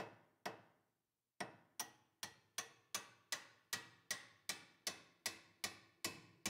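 Steady hammer blows on an old nut threaded onto the end of a Datsun 260Z rear spindle pin, driving the pin through the transverse link bushings. There are about two and a half sharp, short-ringing strikes a second, with one pause of about a second just after the start.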